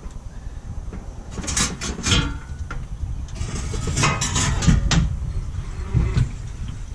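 Metal scraping and clanking as a Chevy Suburban's fuel tank is lowered on a floor jack, in a short burst about a second and a half in and a longer one from about three to five seconds in, with a lighter knock near the end.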